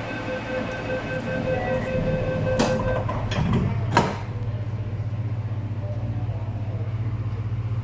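Inside an old East Rail Line Metro-Cammell train: a steady warning tone sounds for about three seconds while the sliding doors knock shut, with the loudest thud about four seconds in. After that there is a steady low, pulsing hum from the train.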